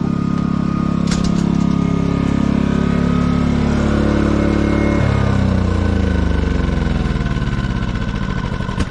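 Portable generator engine running under the air conditioner's load. About halfway through, its pitch slides steadily downward as the AC compressor is switched off and the load drops.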